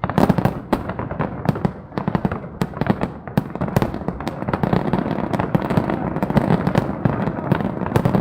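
Fireworks going off in a rapid, continuous crackle of sharp pops, many each second.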